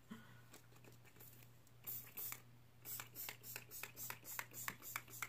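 Maybelline Lasting Fix setting spray pump bottle spritzed onto the face: a quick run of about a dozen short hissing puffs, starting about two seconds in.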